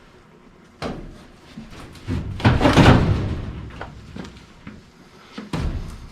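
Sheet-metal knocks and a loud scraping clatter as a furnace heat exchanger is shifted and lined up in its cabinet. There is a sharp knock about a second in, a longer clatter from about two to three and a half seconds in, and another knock near the end.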